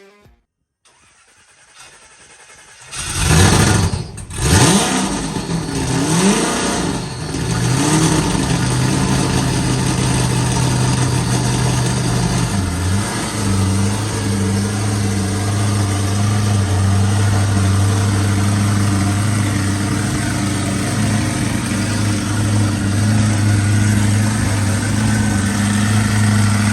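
Supercharged alcohol-fuelled engine of a 1,400 hp VX Commodore Clubsport. It comes in loudly about three seconds in, is revved hard in several rising and falling sweeps, then held at steady high revs for a long burnout, with a brief dip around twelve seconds.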